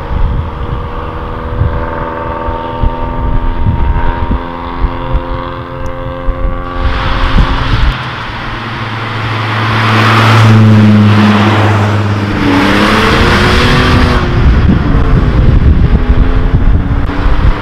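Cars driving past one after another, engines pulling away under throttle. About halfway through, a louder one comes through with a strong low exhaust note that rises and falls as it revs.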